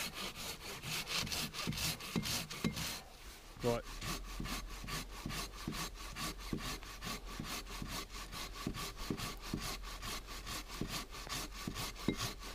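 Hand saw cutting through a felled log with fast, even back-and-forth strokes. The sawing pauses briefly about three seconds in, then resumes at the same pace.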